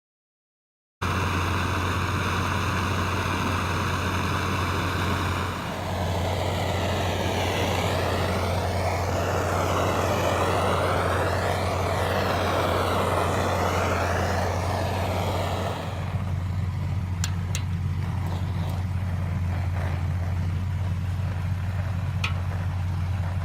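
A vehicle engine idling steadily with a low, even hum. For about ten seconds in the middle the sound swirls and shifts, and a few sharp clicks come near the end.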